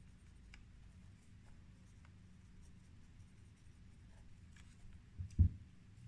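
Faint scratching of a pen writing on paper, in scattered short strokes over a low steady hum. Two dull low thumps sound close together about five seconds in, louder than the writing.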